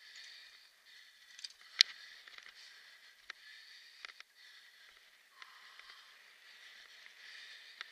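Rushing noise of riding a kick scooter over a rough dirt and grass track, with scattered clicks and knocks from the bumps, the sharpest about two seconds in.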